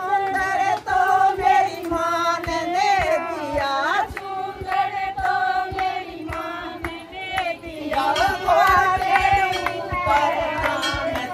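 Hindi devotional bhajan: a voice sings a melody over a steady percussion beat.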